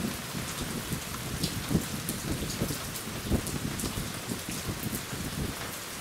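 Heavy rain falling steadily, with many irregular sharp taps of drops landing close by.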